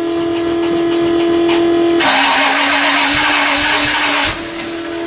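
1968 Ford Torino's engine running on a cold start after a month unstarted in single-digit cold, holding a steady note, with a louder, rougher stretch of about two seconds in the middle.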